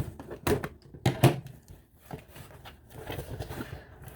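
A box being handled and opened by hand: a few sharp knocks in the first second and a half, then softer rustling of the packaging.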